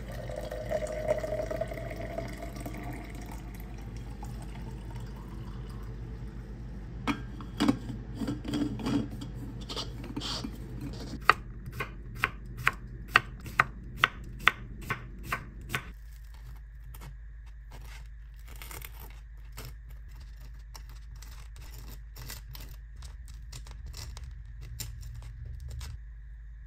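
Tea poured from a glass teapot into a metal tumbler, the pitch of the filling rising over the first few seconds. Later a knife slices an English cucumber on a wooden cutting board, with sharp cuts about twice a second, followed by quieter light taps as the slices are handled.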